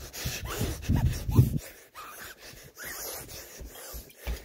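A person's gasping, breathy vocal noises in the first second and a half, followed by quieter rustling and a few light knocks from a phone being handled.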